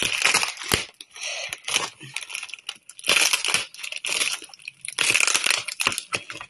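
Plastic mailing bags and clear packing tape crinkling and rustling in irregular bursts as hands pull and tear them apart.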